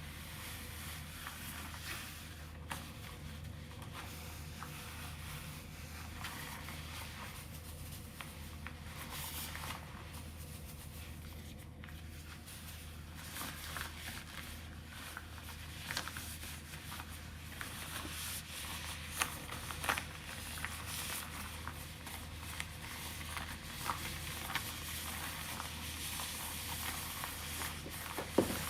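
Vacuum cleaner running quietly, a steady low hum, with scattered small crackling clicks of debris and bristles being picked up.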